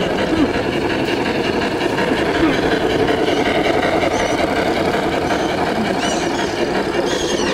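Steady babble of many voices in a crowd, with a few short high-pitched calls near the end.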